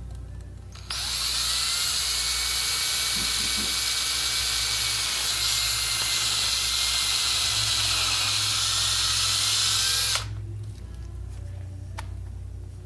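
Power drill with a 1/4-inch bit running steadily, boring through the layers of a vinyl curtain panel, for about nine seconds before it stops suddenly.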